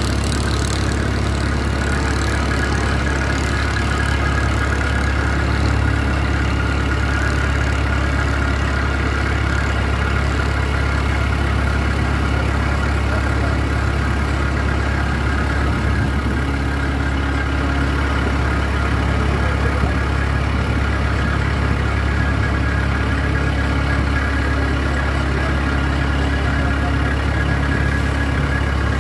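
Passenger boat's engine running steadily at cruising speed, a constant low drone, with water rushing and splashing along the moving hull.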